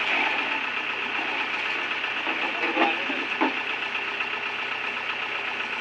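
Combine harvester engine running steadily, with two short knocks close together about three seconds in.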